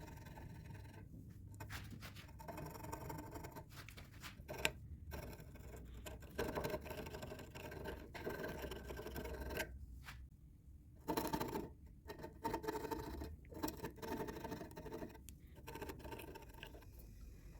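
Irregular scraping and scratching of a tool or abrasive working wood, in short strokes with brief pauses.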